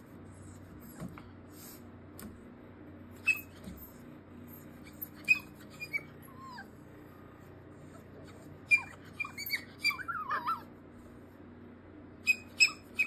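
Young puppy whining and yipping in short, high-pitched cries from inside a plastic crate, protesting being crated. The cries come in scattered clusters, the longest run about nine to ten and a half seconds in, with a few sharp yips near the end.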